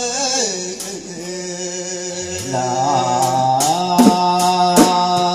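A man singing a traditional dendang song into a microphone, holding long, wavering, ornamented notes that step up in pitch partway through. Strikes on a large frame drum join about four seconds in.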